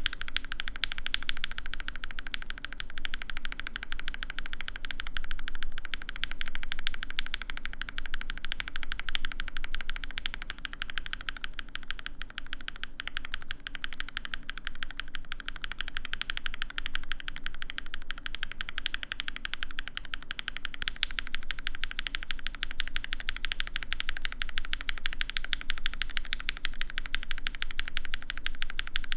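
Fast, continuous typing on a mechanical keyboard: a dense, even clatter of keystrokes.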